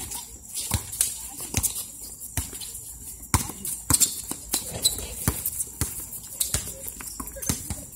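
Basketball being dribbled on a concrete court: a string of sharp, irregularly spaced bounces, mixed with players' footsteps.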